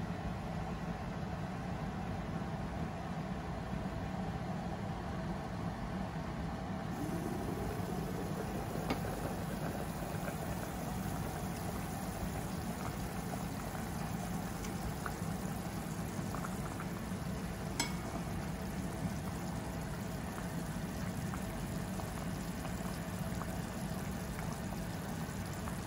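A pot of mung bean and jackfruit soup boiling, bubbling over a steady low hum. About seven seconds in the aluminium lid is lifted and the bubbling comes through brighter, with two light clinks, one soon after and one about halfway through.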